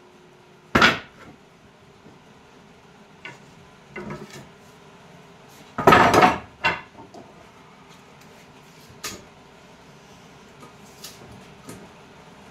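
Wooden boards knocking and clattering as they are handled and set down on a workbench: a sharp knock about a second in, a louder half-second clatter around six seconds, and a few lighter taps.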